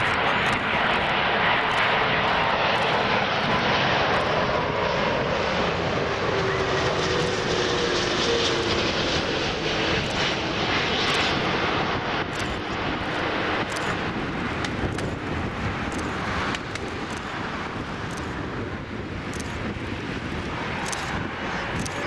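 Airbus A340-500 airliner passing low on landing approach, its four Rolls-Royce Trent 500 turbofans running with steady jet noise. Whining tones slide down in pitch as it goes by. The sound is loudest in the first half and eases gradually over the second half.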